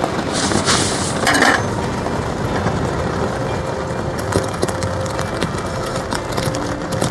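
Heavy rain beating on a polycotton camping tarp, a dense even patter of drops. About a second in there is a short hiss and a clink of dishes or utensils being handled.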